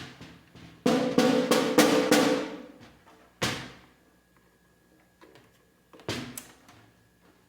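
Snare drum with its snare wires tightened, being struck as a tuning check: a quick run of strokes about a second in, then single hits, each ringing briefly with a buzzy rattle.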